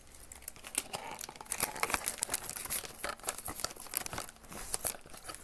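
Gift wrapping and a gift bag being crumpled and torn open by hand: a dense, irregular run of crackles and rustles.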